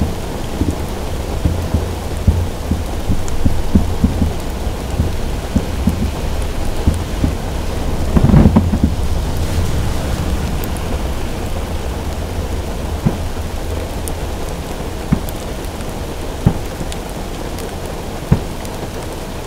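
Heavy rain falling on a car roof, a steady hiss scattered with short low knocks. A loud low boom swells about eight seconds in, from thunder or a distant firework report.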